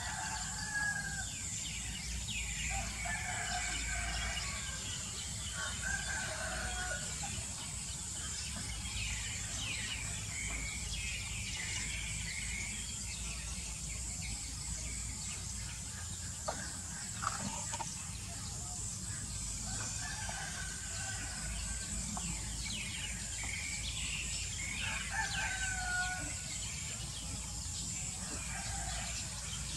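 Roosters crowing several times in the background, each crow about a second long, over a steady high insect hiss. A couple of sharp clicks come about halfway through.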